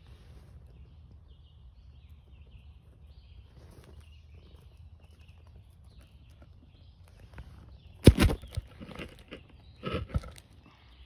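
Faint outdoor background with faint chirps, then from about eight seconds in a few loud scuffs and knocks as the hand-held phone is jostled and covered while a hand reaches under a rock into leaf litter.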